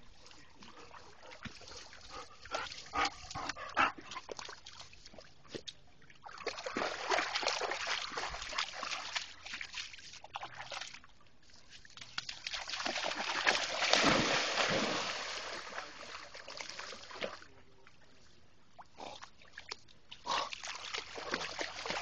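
A dog barks and whines a few seconds in, followed by two long stretches of splashing as dogs run and wade through shallow lake water.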